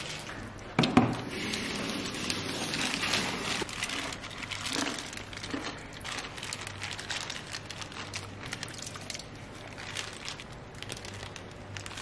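Crinkling and rustling handling noise, with a single sharp knock about a second in.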